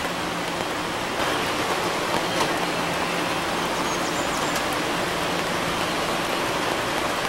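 River rapids rushing steadily, an even hiss of white water.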